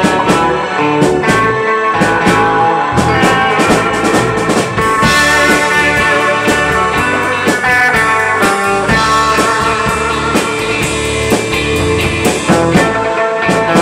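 Live band music: two Stratocaster-style electric guitars playing over a drum kit, in a blues-rock style.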